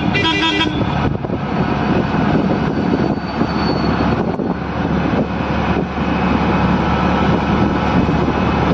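Auto-rickshaw engine running steadily while the rickshaw drives, with road and wind noise. A vehicle horn finishes sounding just after the start.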